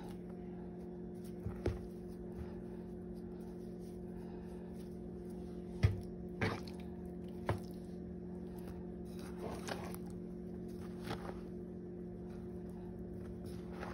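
Raw chicken strips being turned and pressed into a bowl of seasoned flour breading: a few soft knocks and faint rustles over a steady low hum.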